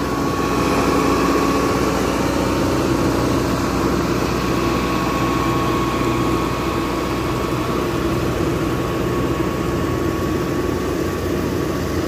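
Diesel engine of heavy asphalt-paving machinery running steadily, with a steady high whine over the engine note.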